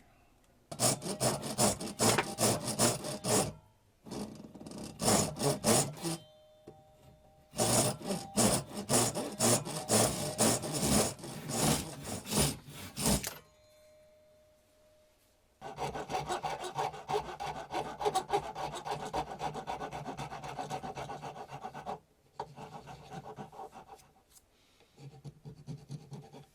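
Rapid back-and-forth rasping strokes of a hand tool working a piece: three bursts of several seconds each, then a steadier run of rubbing and two short bursts near the end.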